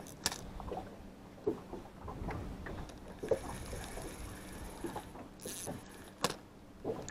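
A spinning reel being cranked by hand, with a few scattered sharp knocks and clicks from handling the rod in a small boat, over a steady low noise of wind and water.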